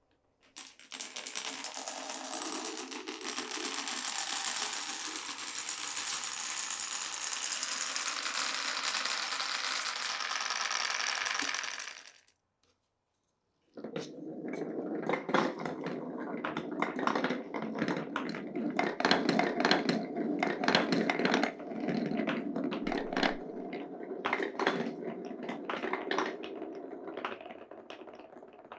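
Glass marbles rolling down a wooden marble run: a steady rolling rush for about eleven seconds, a short break, then rolling with many clacks and knocks as the marbles hit the wooden track and blocks.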